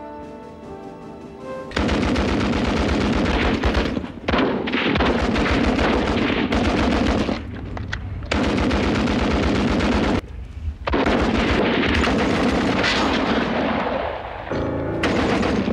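Tripod-mounted machine gun firing several long rapid bursts of a couple of seconds each, with short breaks between them. Before the firing starts, about two seconds in, a short stretch of music.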